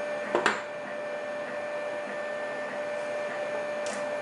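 Small metal lock parts clicking twice in quick succession about half a second in, then once more faintly near the end, over a steady background hum with a constant tone.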